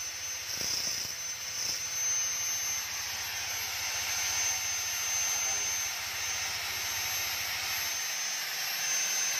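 Electric drill run against the end of a Yamaha Lexi scooter's crankshaft, working the stripped crankshaft bolt hole for a new thread. A high motor whine comes in a couple of short pulses, then runs steadily from about a second in, over a loud hiss.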